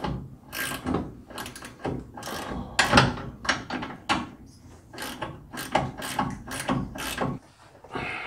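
Hand ratchet wrench clicking in repeated strokes on the upper control arm's mounting nut, about two strokes a second; it stops about seven seconds in.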